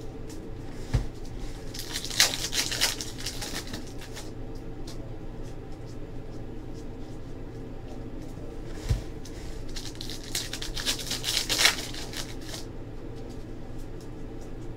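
Trading-card pack wrappers being torn open and crinkled in two bursts, each just after a soft thump, over a steady low hum.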